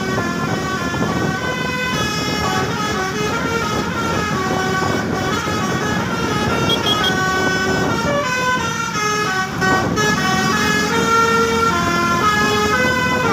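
Basuri V3 telolet horn on a bus playing a melody of short, stepped horn notes, a few notes a second without a break.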